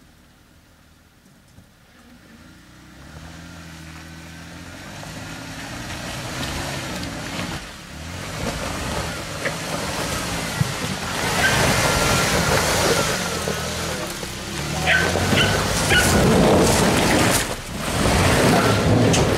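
Jeep Wrangler JK engine working at low speed, its revs rising and falling as it crawls over a rutted dirt trail. It grows steadily louder as it comes closer. In the second half, loud crunching and scraping of tyres over rocks, dirt and leaves comes in as it passes close by.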